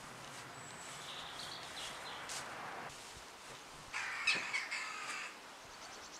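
A large polyethylene tarp rustling and crackling as it is thrown over a line and spread out. About four seconds in comes a louder harsh, bird-like cawing call lasting about a second.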